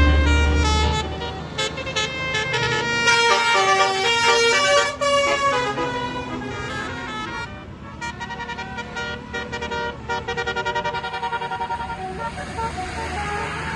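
Basuri "telolet" multi-tone bus horn playing a fast tune of stepped notes, with a stretch of rapidly repeated, stuttering notes in the second half.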